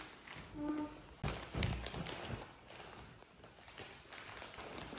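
A short snatch of background music ends about a second in. After it come soft thumps and scattered crinkly rustling from a plastic package being handled, with a macaque moving about on a bed.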